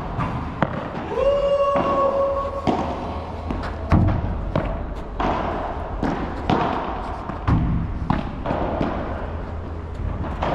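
Padel rally: the ball struck by rackets and bouncing on the court, sharp hits about once a second with a couple of heavier thuds. A squeak is held for about a second and a half, starting about a second in.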